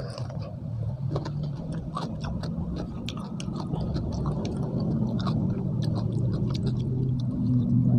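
Close-miked chewing of spicy stir-fried beef and raw vegetables, with many small wet mouth clicks. A low engine-like rumble grows louder toward the end.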